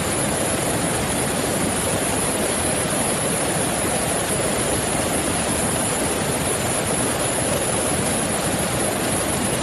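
Coast Guard rescue helicopter's turbine engine and rotor running steadily, an even wash of noise with a thin high-pitched whine over it.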